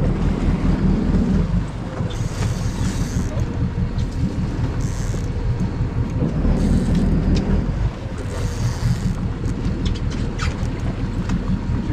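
Boat engine running steadily at low revs, a low hum under wind buffeting the microphone. A few short, high hissing bursts come and go on top of it.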